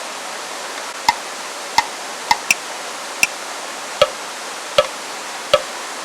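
A metal cooking utensil knocking against a metal pan or pot while onions are stirred, eight sharp, irregular knocks, each with a short metallic ring, over a steady hiss.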